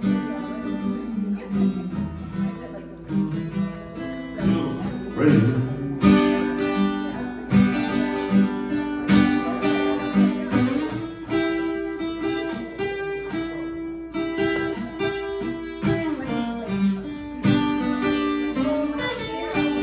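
Acoustic guitar played solo with no singing, picked notes and strummed chords, with a few sliding notes along the way.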